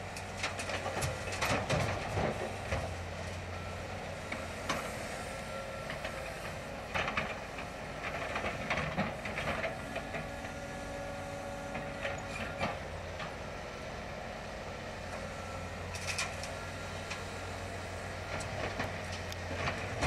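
Distant crane's engine running with a steady low hum, with scattered clanks and knocks as it picks up pieces of the demolished dry kiln and loads them for hauling.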